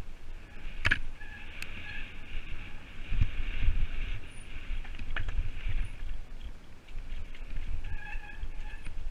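Mountain bike rolling fast down a rocky forest singletrack, heard from a helmet camera: a steady low rumble of tyres and wind with rattles and knocks from the bike over rocks and roots. There is a sharp knock about a second in and a short squeal near the end.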